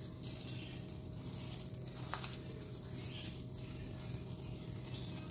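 Dry mixed split lentils (chana, toor, moong, masoor and urad dal) rattling and pattering as a hand scoops them up and lets them trickle back into a bowl, in repeated short bursts. A low steady hum runs underneath.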